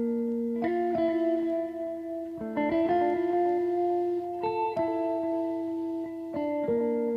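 Background music: a slow melody of sustained plucked-string notes, new notes struck in pairs every second or two.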